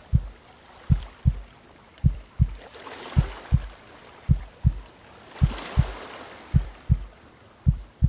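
Deep heartbeat sound effect: paired low thumps, lub-dub, a little under once a second, over calm ocean waves that swell in and wash out twice.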